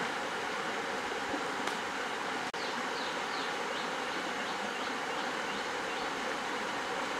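Shallow stream water rushing and splashing steadily. A run of short, high, falling chirps, several a second, sounds over it from about a third of the way in.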